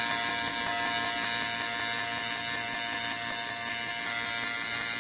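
AC TIG welding arc on aluminum from an HTP Invertig 221 inverter welder, a steady buzz set by its 120 Hz AC frequency.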